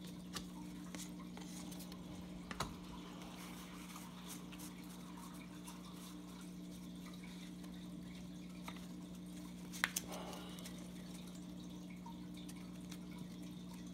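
A few light clicks and a soft rustle of baseball cards being handled and flipped through, the sharpest clicks about two and a half seconds in and near ten seconds, over a steady low hum.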